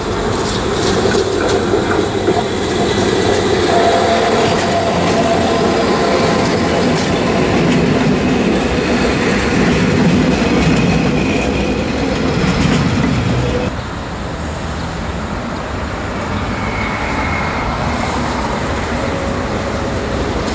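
Metre-gauge electric trains running on the station tracks close by, with steady wheel and running noise. The noise is heaviest as a train passes right by the camera about ten seconds in, then eases off a little at about fourteen seconds.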